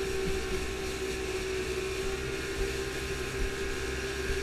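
Motorboat engine running steadily under way, a constant drone with a steady humming tone over the rush of water and wind.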